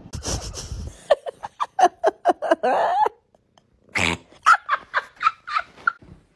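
A quick run of high-pitched dog yaps, about four a second, then after a short pause a second run of short, higher calls from an orange tabby cat.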